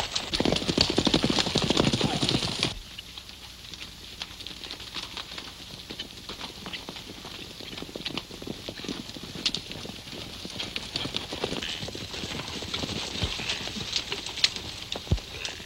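Hoofbeats of several horses on dirt. Loud and dense for the first two and a half seconds, then fainter and steady.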